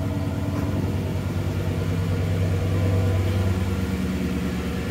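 Audi S8's 5.2-litre V10 idling steadily on a cold start, with the secondary air injection pump running alongside it, as it does for a while after a cold start until it shuts off.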